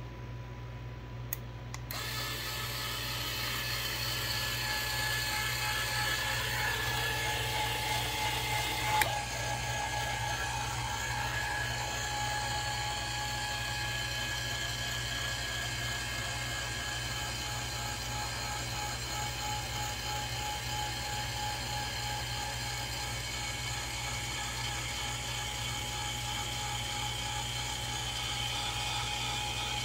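Electric linear actuator's gear motor running steadily with a whine as it drives the coop door along its slides, starting about two seconds in. A single sharp click comes about a third of the way through, over a steady low hum.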